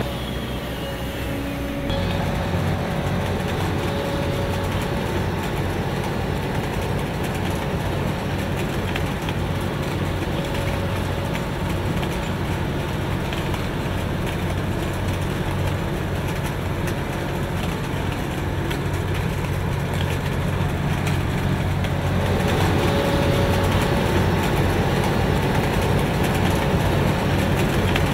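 Heavy diesel engine of road-construction machinery running steadily with a low, even hum. The sound changes abruptly about two seconds in and gets a little louder about twenty seconds later.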